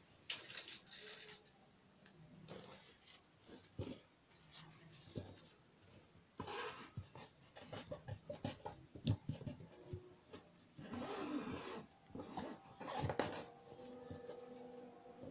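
Black lining fabric being folded, smoothed and pinned by hand: several short spells of rustling and rubbing, with small taps and clicks.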